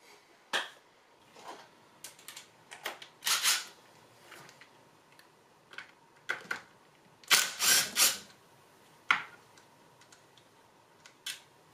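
Short bursts from a cordless power tool and sharp clicks of tools on the aluminium case of a Honda K20Z1 manual transmission as a detent spring bolt is backed out. The sounds come in irregular bursts, the loudest a cluster of about three a little past the middle.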